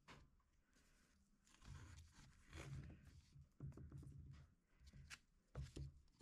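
Near silence, with faint scattered light knocks and rustles.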